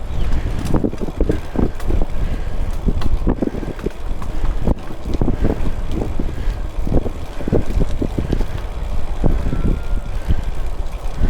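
Wind noise on the microphone of a moving cyclist: a steady low rumble with short gusts every second or so.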